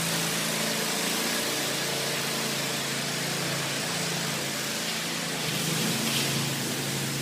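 Pressure washer running steadily: a low engine hum under a broad hiss of spraying water.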